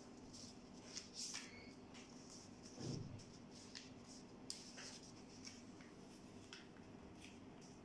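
Faint rustling and crackling of origami paper being folded and creased by hand, in short irregular bursts, with a soft bump about three seconds in, over a steady low hum.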